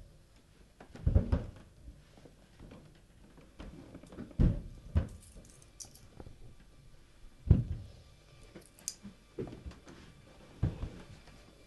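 A series of about six dull thumps at irregular gaps, with faint high crackles in between.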